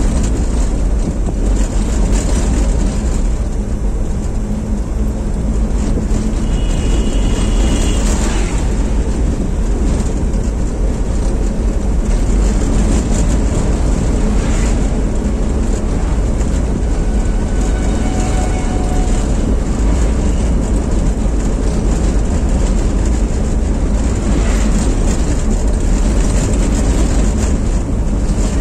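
Steady in-cabin noise of a small car being driven on the road: engine and tyre rumble, heavy at the low end, with no break.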